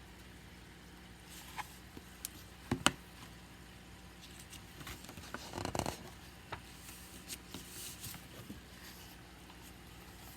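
Picture-book pages being turned and handled: paper rustling with a few light clicks and knocks, the sharpest about three seconds in, over a faint steady hum.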